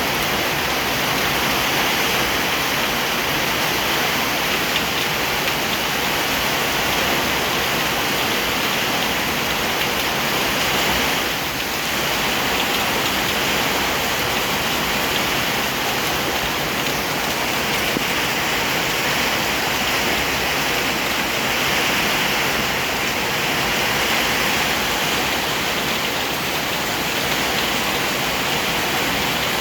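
Steady heavy rain, a dense even hiss that holds its level throughout, with a slight brief dip about eleven seconds in.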